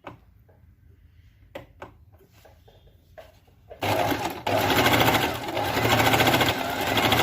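A few faint clicks, then about halfway in a Singer Fashion Maker 8280 electric sewing machine starts up and runs steadily at a fast, even rhythm, sewing a zigzag stitch.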